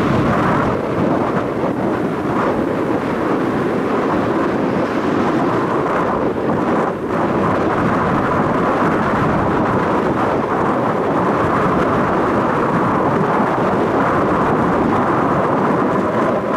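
Strong wind buffeting the microphone: a loud, steady rumbling rush with small dips in level.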